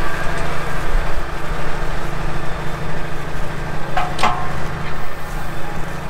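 Tractor's diesel engine running steadily as it pulls a mole plough through the ground, a heavy pull for the tractor.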